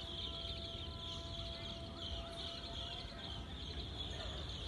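Outdoor insect chorus: a steady, high trilling that holds throughout, over a low rumble.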